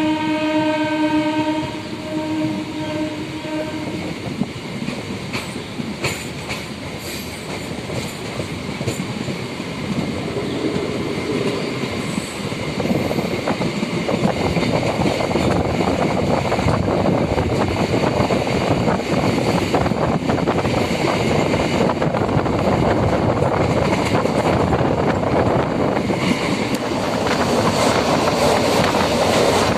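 MEMU electric train sounding its horn for about four seconds, then its wheels clattering over the rail joints, growing louder as the run goes on.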